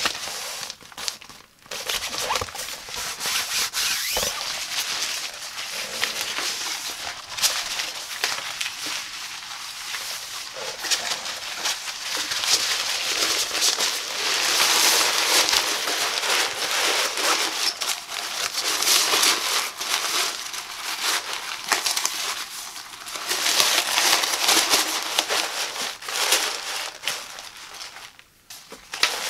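Black nylon fabric of a pop-up windshield sun shade rustling and crinkling as hands handle it and fold it up, with a couple of short pauses.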